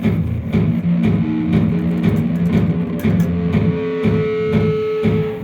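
Electric guitar through an overdrive, playing low notes in an even, repeated rhythm, with a higher note held from a little past halfway.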